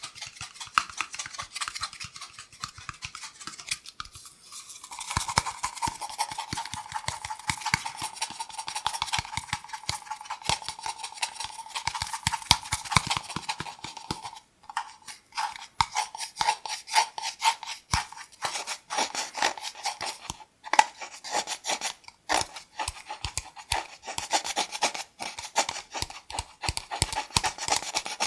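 Cardboard kitchen-roll tube being tapped and scratched close to the microphone in a dense, uneven run of small taps and scrapes. From about five seconds in, a hollow tone rings under the strokes.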